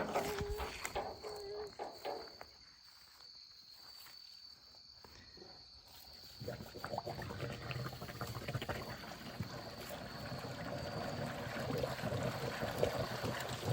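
Water starts running about halfway in, a steady gushing that builds slightly toward the end.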